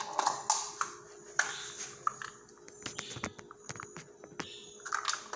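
Plastic measuring spoons clicking and rattling on their ring while cooking oil is measured out and poured from a spoon into a bowl of rice and water, with a few short hissing sounds between the clicks.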